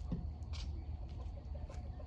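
Backyard hens clucking faintly over a steady low rumble.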